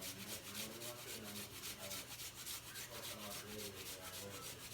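Ginger being grated on a hand grater: quick, even scraping strokes, about six a second.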